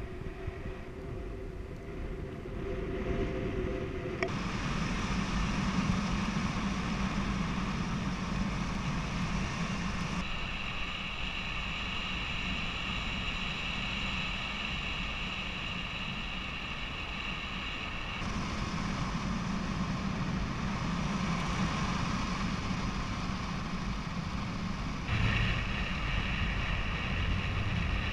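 Steady wind rushing over the camera microphone during a paraglider flight, with a few faint steady tones in it. The sound changes abruptly several times.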